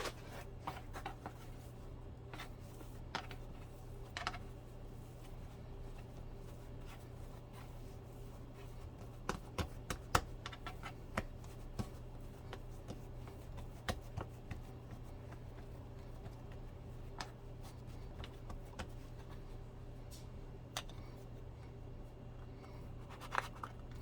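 Scattered light taps, clicks and rustles of hands and utensils working biscuit dough on a counter, busiest a little under halfway through, over a steady low hum.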